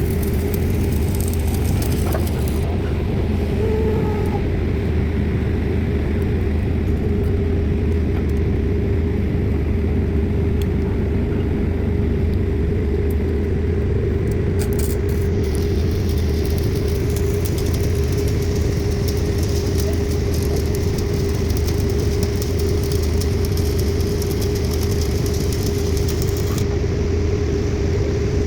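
Diesel engine of heavy piling machinery running steadily: an even low rumble with a constant hum, no separate hammer blows standing out.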